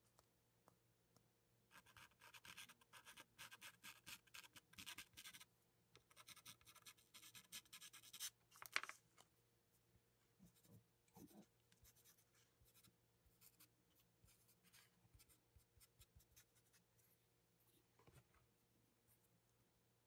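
A white soft pastel stick scratching quietly across paper in rapid short, hard strokes, in two runs of a few seconds each. A single sharp tap comes a little before halfway, followed by only faint, occasional scratches.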